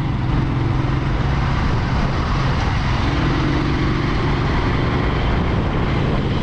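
Motorcycle engine running steadily while riding, with wind and road noise rushing past.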